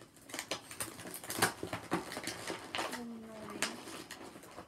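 Crinkling and crackling of a clear plastic toy bag and packaging being handled, an irregular run of sharp clicks and rustles.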